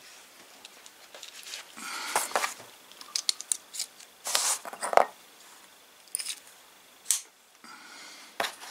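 Hand tools being handled on a table: a fabric screwdriver-bit pouch rustling as it is laid down and opened, and metal bits and a screwdriver clicking and clattering as one is picked out. The sounds come as irregular short rustles and clicks, with a quick run of small clicks a few seconds in and the loudest rustle just after it.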